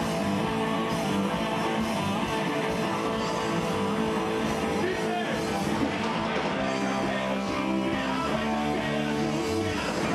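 Rock band playing live, with electric guitar prominent, in a steady continuous stretch of the song.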